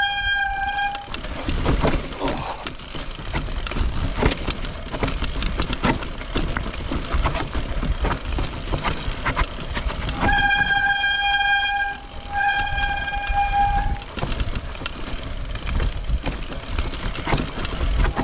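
Mountain bike's wet disc brakes squealing on a steep rocky descent: a steady high squeal with overtones, sounding briefly at the start and again in two stretches from about ten to fourteen seconds in. Between squeals the bike clatters and rattles over the stone path, with wind rumbling on the microphone.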